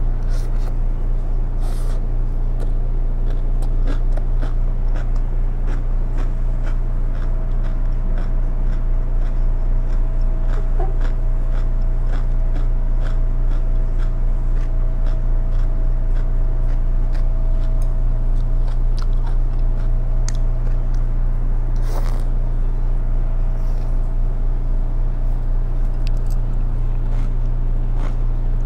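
Crunching and chewing of raw spiralized cucumber salad, with many short sharp crunches throughout. A steady low hum runs underneath.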